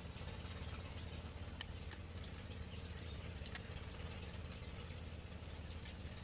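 A few faint light clicks of bamboo strips and a rubber band being handled, over a steady low background hum.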